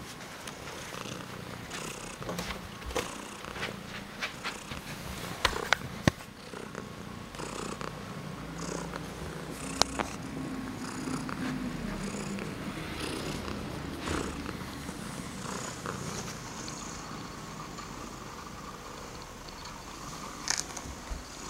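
Domestic cat purring steadily close to the microphone, with scattered sharp clicks and knocks over it.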